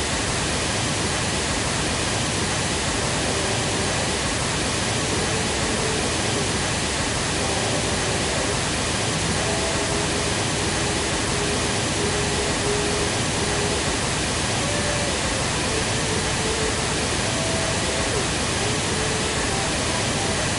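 Pink-noise measurement signal playing loud and steady, with an electric guitar track faint beneath it as the contamination the SSA filter is meant to keep out of the measurement.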